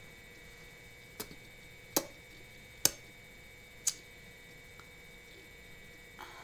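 Four sharp clicks, about a second apart, over quiet room tone.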